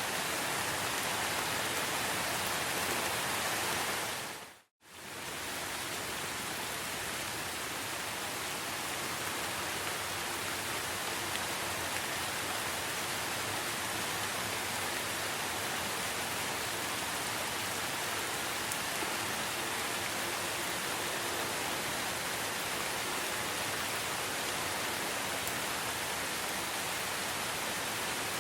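Steady rain falling, an even dense hiss. About five seconds in it fades out to silence for a moment and comes straight back.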